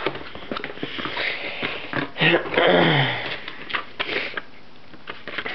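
Rustling, scraping and clicking of a camcorder box and its packaging being opened by hand. A short murmured vocal sound falling in pitch comes about halfway through.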